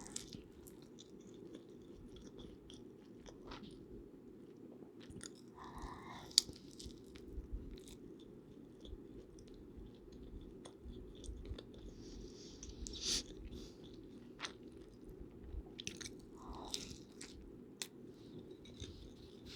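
Close-miked eating sounds: chewing and biting with many small mouth and utensil clicks, the sharpest about six seconds in, over a steady low background noise.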